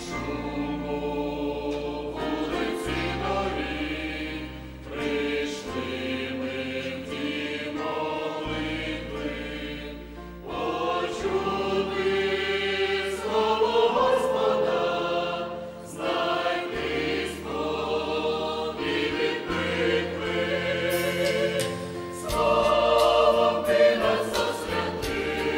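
Mixed choir of men's and women's voices singing a sacred song in parts, over an instrumental accompaniment with held bass notes that change every second or two.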